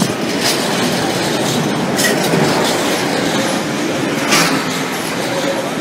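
Container freight train's loaded flat wagons rolling past at close range, a steady rumble of wheels on the track with a few sharp clacks, the loudest a little over four seconds in.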